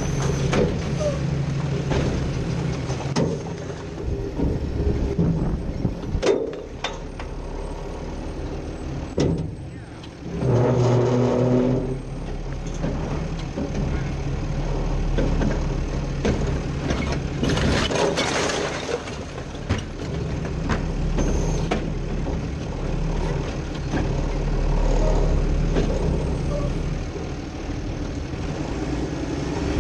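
Autocar WX64 refuse truck with a Heil Rapid Rail side-loader body, heard from inside its hopper: the diesel engine runs with a steady hum, broken by sharp knocks about six seconds in, a louder, higher-pitched stretch around ten to twelve seconds in, and a hiss around eighteen seconds in.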